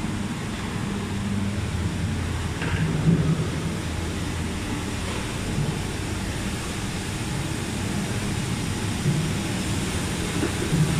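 Steady rumble and hum of a woodworking factory floor, with a low hum that swells and fades now and then.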